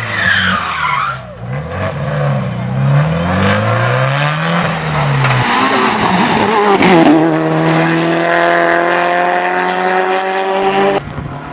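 Turbocharged four-cylinder rally cars at full throttle, one after another: first an engine note that falls as a car passes, then sweeps up and down through gear changes; then a second car's engine rising steadily in pitch as it accelerates hard.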